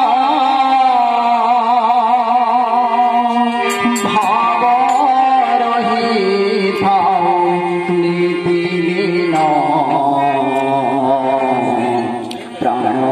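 A man singing a devotional song with a wavering melodic line into a microphone, accompanied by a harmonium's steady held notes. The singing breaks off briefly near the end.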